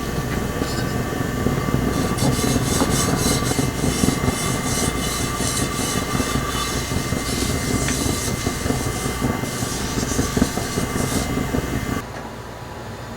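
Electric hand mixer running steadily, its beaters scraping and rattling in a bowl as it whips eggs. The sound drops to a quieter level about twelve seconds in.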